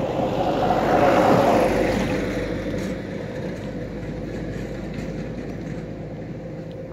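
A motor vehicle passing by: a noisy rush that swells to its loudest about a second in, then slowly fades away.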